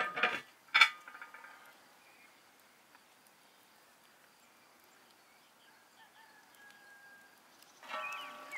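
Steel lid set down onto a cast-iron kazan: a loud metallic clank at the start and a second one about a second in, each ringing briefly. Near the end a bird begins calling.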